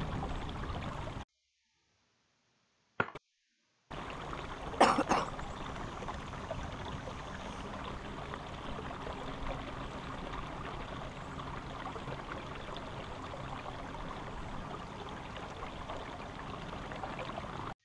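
Water trickling and splashing along a canoe's hull as it moves under an electric trolling motor, steady throughout, with one brief louder splash or knock about five seconds in. The sound cuts out completely for about two and a half seconds near the start.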